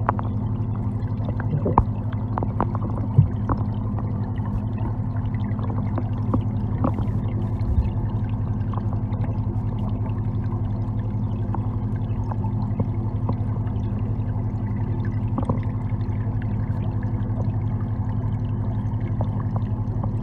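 Underwater pond sound picked up with the microphone under the water: a steady low hum with water noise and scattered faint clicks.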